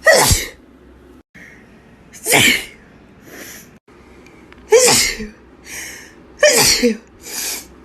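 Four loud human sneezes in a row, about two seconds apart, each a sharp explosive burst. A quieter, shorter burst follows three of them.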